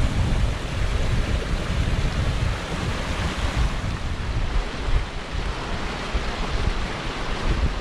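Wind buffeting the microphone in uneven gusts, over the steady rush of a small mountain burn tumbling down over rocks.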